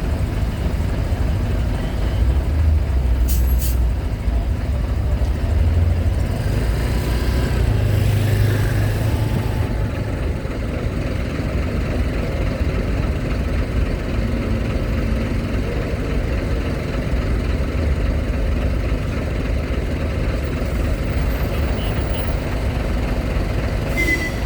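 Heavy trucks' diesel engines running with a steady low rumble as vehicles board a ferry, with a few short air-brake hisses.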